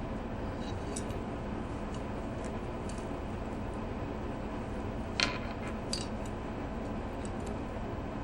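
Faint small clicks and taps of a beading needle and glass beads being handled in beadwork, with one sharper click about five seconds in, over a steady background hiss.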